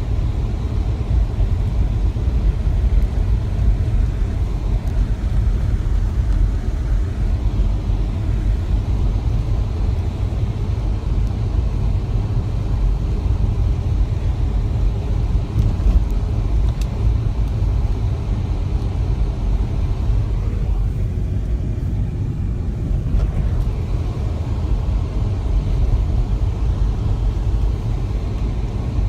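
A car driving: a steady low rumble of engine and road noise heard from inside the cabin.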